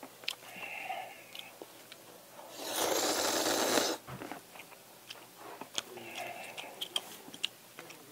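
A person eating ramyeon noodles: one loud, hissing slurp lasting just over a second, about two and a half seconds in. Chewing and small mouth clicks before and after.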